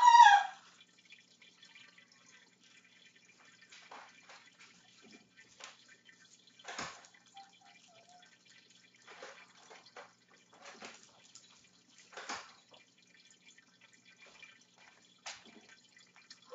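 A short, loud, high-pitched cry right at the start, then a quiet room with a dozen or so light taps and knocks scattered unevenly, a second or so apart.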